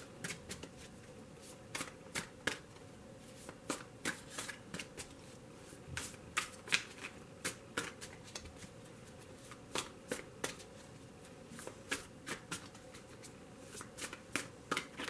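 A deck of tarot cards being shuffled by hand: an uneven run of short card slaps and flicks, several a second.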